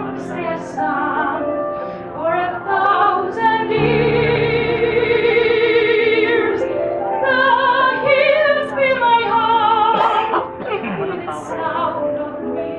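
Music with a singer in a classical, operatic style, holding long notes with a wide vibrato over an accompaniment.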